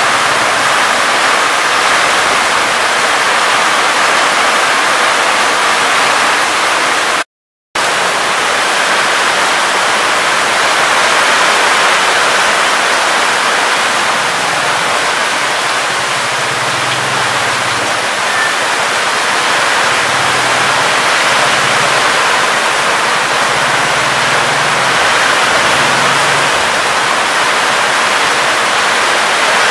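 Heavy rain in a steady downpour, with runoff pouring off the roof edges. The sound cuts out completely for a split second about seven seconds in.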